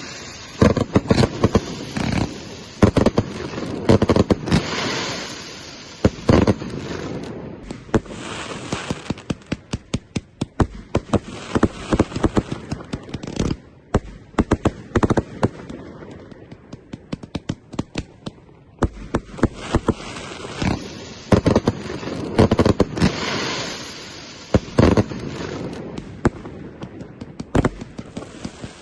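Fireworks going off in a continual barrage of sharp bangs and crackling. The barrage thickens into two dense volleys, one in the first few seconds and another about twenty seconds in.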